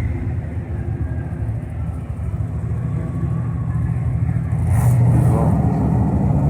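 Car engine running steadily with a low rumble, getting a little louder about five seconds in.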